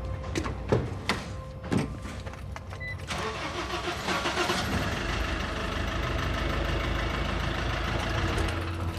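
Refrigerated truck's engine started: a few knocks, then about three seconds in the engine catches and runs steadily at idle. It starts and runs without trouble, though the truck was claimed to be broken down.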